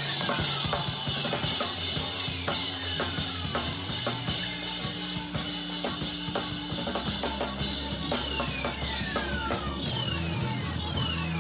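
Live band music: a drum kit keeps a beat with kick and snare hits under sustained low bass notes. High tones slide downward again and again.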